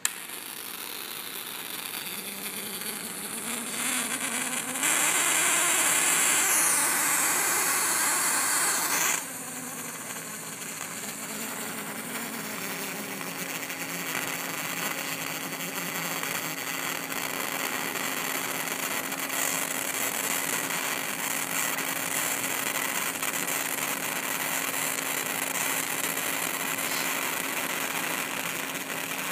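High-voltage arc from an inverter-driven flyback transformer, buzzing and hissing continuously as it plays onto a neodymium magnet. About five seconds in it gets much louder for roughly four seconds, then settles to a steady buzz with a faint low hum.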